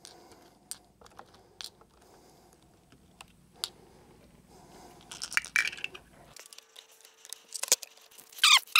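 .45 ACP cartridges being pressed one at a time into a pistol magazine: a few light metallic clicks and clinks of brass, with a brief louder rasping noise near the end.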